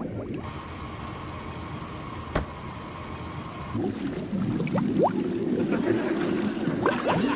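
Underwater bubbling over a low muffled rumble as a sack sinks in river water. The bubbles gurgle more busily, in quick rising chirps, from about four seconds in, with a single sharp click a little after two seconds.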